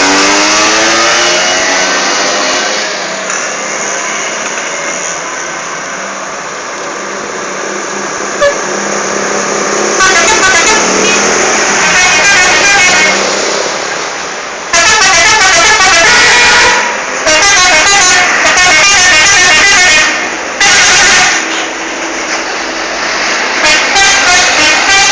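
A bus's telolet horn, a multi-tone musical air horn, playing its warbling tune in several loud blasts, the first about ten seconds in and a run of short toots near the end. Before and between the blasts, steady vehicle engine and road noise.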